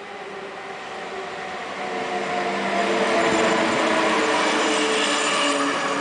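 SBB Re 460 electric locomotive hauling an InterRegio passenger train past close by: the noise grows louder over the first half as it approaches, then holds as the locomotive and coaches roll past, with several steady tones from the locomotive over the wheel-on-rail noise.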